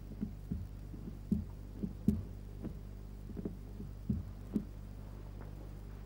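Soft, irregular thumps of a carved seal being dabbed into a pot of red seal paste to ink it, over a steady low electrical hum.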